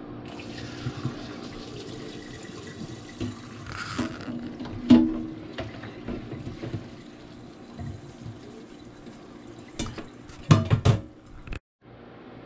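Water pouring from a stainless-steel pot through a plastic colander into a steel sink as soaked rice noodles are drained. Several sharp knocks follow, the loudest about five seconds in and a cluster near the end.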